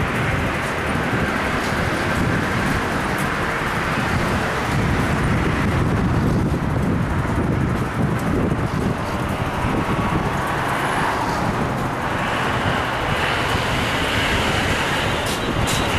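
Steady road traffic noise from passing vehicles, with a few light clicks near the end.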